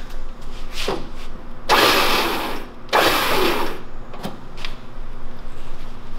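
Warn VR EVO 10-S electric winch motor and gear train running in two short bursts, about two seconds in and again just after, as the line is powered in by the wireless remote. A few light clicks come before and after the bursts.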